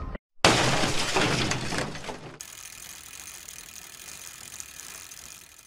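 Intro-animation sound effect: a loud burst of fast clicking and clattering for about two seconds, then a quieter steady hiss that cuts off suddenly near the end.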